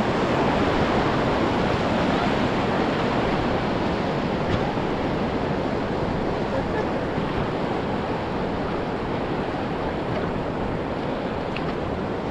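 Rushing white water of a river rapid, a steady loud rush heard from the raft, with some wind on the microphone.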